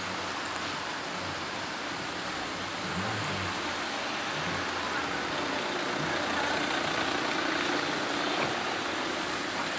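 A line of cars driving slowly past close by, one after another: steady engine and tyre noise on the road, swelling a little as each car passes.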